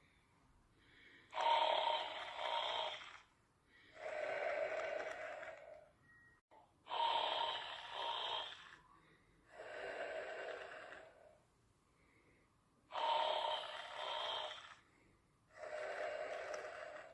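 Snoring in a steady rhythm: six snores, one about every three seconds, alternating between a sharper, brighter snore and a lower, softer one, making about three breath cycles.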